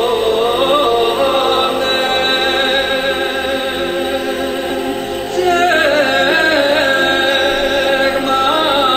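Background music of voices singing a melody in chorus, louder from about five and a half seconds in.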